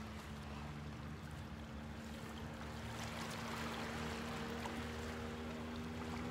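Gentle Mediterranean wavelets lapping and washing over shoreline rocks, with a steady low hum underneath.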